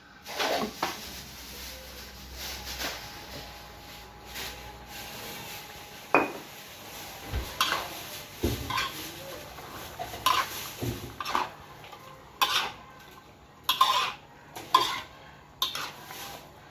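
Metal utensils clinking and scraping against pots and pans in irregular knocks, as cooking gear is handled and stirred.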